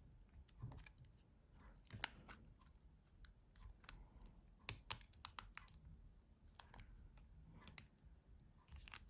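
Faint, scattered small clicks and taps of plastic as the housing and keypad of a Nokia 6700 Classic mobile phone are handled and pressed, a few sharp ones about halfway through.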